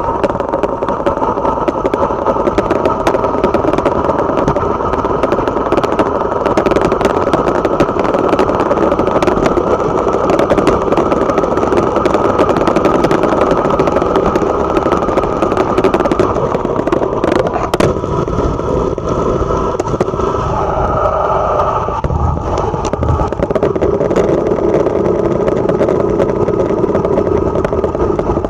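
Motorcycle engine running steadily while riding along the road; the engine note dips and shifts about two-thirds of the way through, then settles again.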